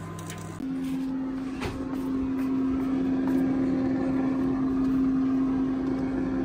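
Gourmia digital air fryer running: its fan gives a steady hum over a rush of hot air. A lower, different hum from an induction hob is heard briefly before it, about half a second in.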